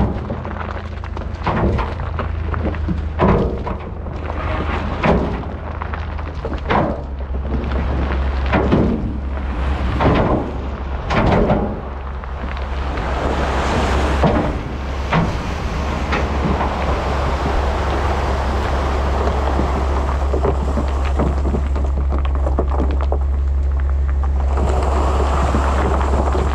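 Heavy diesel truck engine running with a steady low hum. Through the first dozen seconds, sharp heavy knocks and thuds come about every one and a half seconds. After that a louder, even running noise builds and holds.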